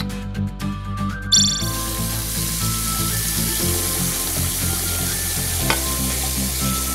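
Toy sink faucet running water into a plastic toy kettle: a steady hiss that starts about a second and a half in and stops near the end. A short bright chime-like tone sounds just before it starts, and background music plays throughout.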